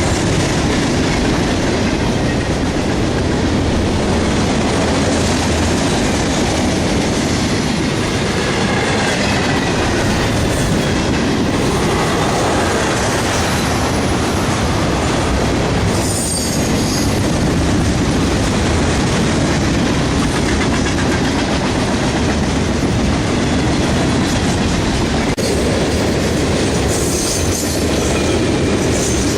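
Freight train cars rolling past, with steady wheel-on-rail noise and clickety-clack over the rail joints. Brief high-pitched wheel squeals come about halfway through and again near the end.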